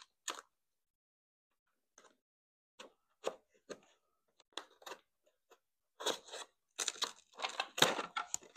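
Hobby knife trimming masking tape along a plastic chassis edge: scattered crisp clicks and crackles of the blade and tape, sparse at first and busier in the last few seconds.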